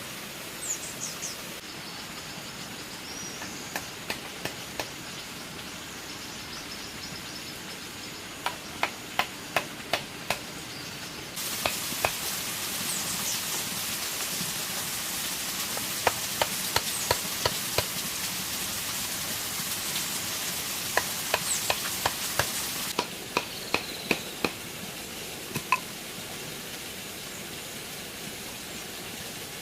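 Runs of sharp knocks, about two a second and four to six in a row, from a hand tool striking bamboo, over a steady outdoor hiss with a few short bird chirps.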